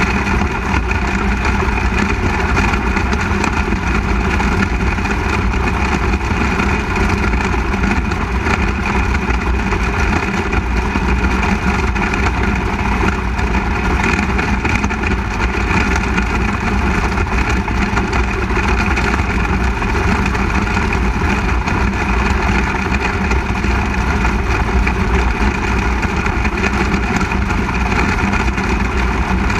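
Onboard sound of a 360 sprint car's V8 engine running at a steady pitch and loudness while the car circles the dirt oval, heard from a camera mounted on the car.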